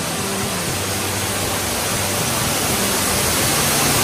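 Rushing of an underground cave waterfall, a steady hiss that slowly grows louder as it draws nearer, with a faint low steady hum underneath.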